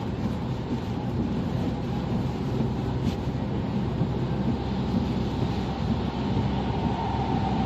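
Steady road noise inside a moving car at motorway speed: an even low rumble of engine and tyres.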